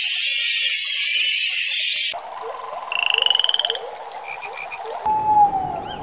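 Spliced night-time wildlife sounds. A dense, high-pitched insect chorus buzzes for about two seconds. A frog-like fast pulsed trill and three short chirps follow over a steady hum. A short falling whistled call comes just past five seconds.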